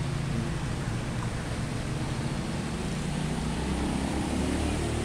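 Water sloshing and splashing in a shallow stream crowded with ornamental carp jostling and gulping at the surface, with a steady low hum underneath.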